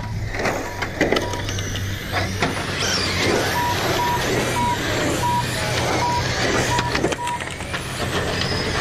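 R/C race cars going past on asphalt one after another, each pass a rising-then-falling whir. A short electronic beep repeats about twice a second through the middle, over a steady low hum.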